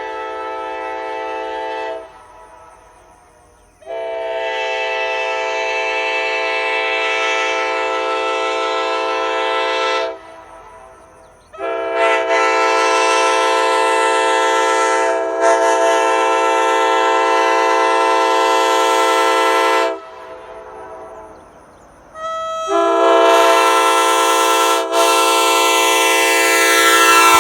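Nathan Airchime K5LA five-chime locomotive air horn sounding its chord in long, steady blasts. One blast cuts off about two seconds in, then three long blasts of six to eight seconds each follow with short gaps, and the last one is still sounding at the end.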